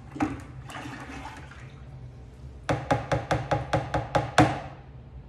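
A spoon stirring yeast into grape must in a plastic bucket, with liquid sloshing. Then about ten quick, even taps of the spoon against the bucket, roughly five a second, each with a short ring, and one last knock at the end.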